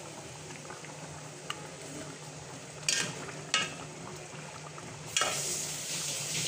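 A spoon stirring curry simmering in an aluminium pot on a gas burner, knocking sharply against the pot twice about halfway through. A louder steady hiss comes in near the end.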